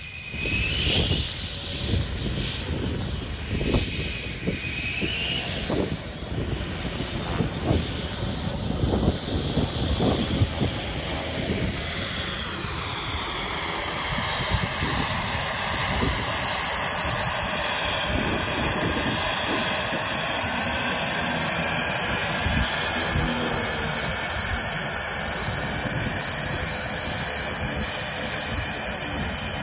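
Turboprop engine of a TL-Ultralight Stream Turbo light aircraft running as the plane taxis close by: a high turbine whine over propeller noise. There is uneven rushing noise over the first dozen seconds, and the whine's pitch falls as the plane goes past.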